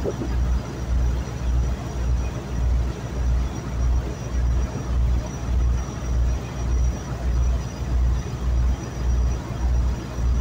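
A boat's engine running steadily under a rushing noise, with a deep throb pulsing a little under twice a second.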